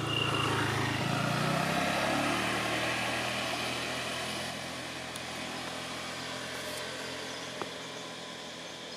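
A motor vehicle's engine going past, loudest in the first few seconds, its pitch rising about a second in, then fading away.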